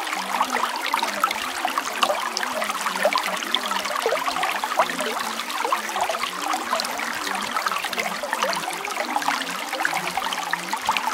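Running water trickling and splashing steadily, dense with small droplet-like ticks and no low rumble, used as the masking background of a subliminal affirmation track.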